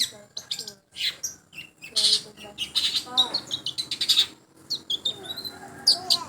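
Long-tailed shrike (cendet) singing a rapid, varied string of short chirps, sliding whistled notes and harsh scratchy calls, with hardly a pause.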